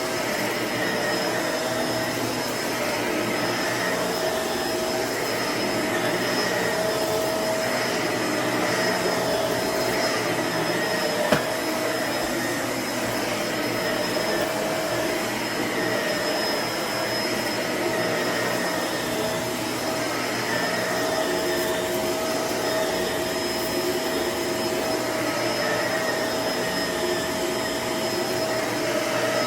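Shark Lift-Away upright vacuum cleaner running steadily as it vacuums up a mess, its motor whine holding an even pitch. One sharp click about a third of the way in.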